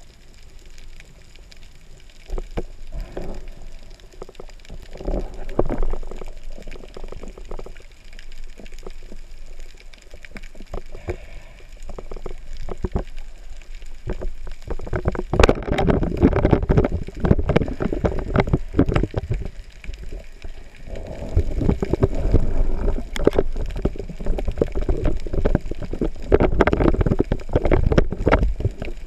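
Muffled underwater sound from a camera housing on a speargun: low water rumble with scattered knocks and clicks. About halfway through comes a sharp crack as the speargun fires, followed by louder, busier knocking and water noise while the speared sea bream is pulled in on the line.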